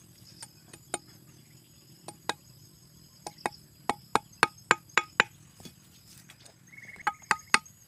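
Machete blade chopping a green bamboo stake with repeated sharp strikes: a few scattered chops, then a quick run of about eight, roughly four a second, and three more near the end. Insects buzz steadily underneath.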